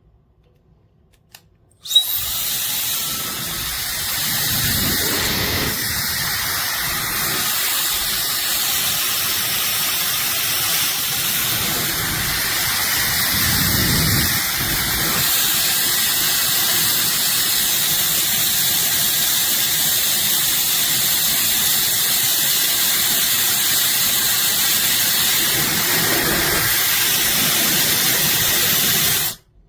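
Compact 1500 W travel hair dryer switched on about two seconds in, its small motor and fan running steadily with a loud hiss of blown air, with low rumbles now and then. It is switched off abruptly just before the end.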